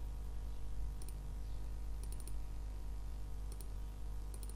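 Computer mouse clicking several times, faint and sharp, some clicks in quick pairs like double-clicks, over a steady low electrical hum.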